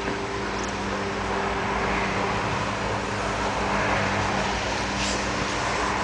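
Steady background rumble and hiss with a low, even hum, and a couple of faint ticks near the end.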